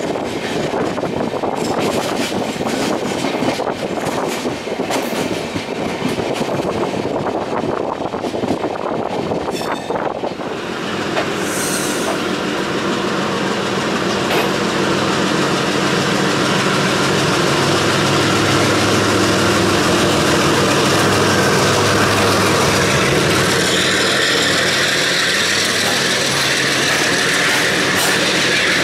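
Train running at speed: wheels clickety-clacking over rail joints with rushing air. From about ten seconds in, a steady low hum of a passing locomotive comes in and holds as a long container freight train rumbles by on the next track.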